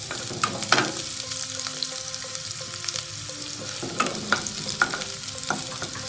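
Chopped onion sizzling as it fries in hot oil, with a spatula scraping and knocking against the pan in irregular strokes as it stirs.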